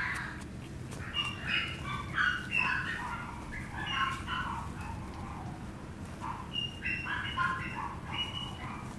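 Chihuahua puppy giving rapid short, high-pitched squeaks and whimpers in two spells, over a steady low hum.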